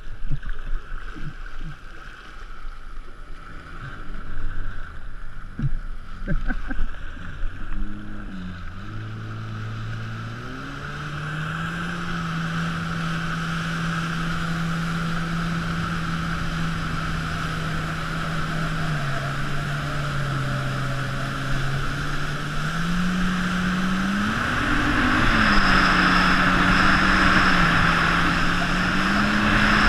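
Jet ski engine pulling away from low speed: it picks up about a third of the way in, runs steadily, drops briefly and climbs again as the throttle changes. The rush of water and wind grows louder near the end.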